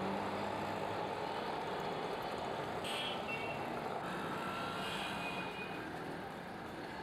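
Steady road traffic noise, with a few short high beeps around the middle.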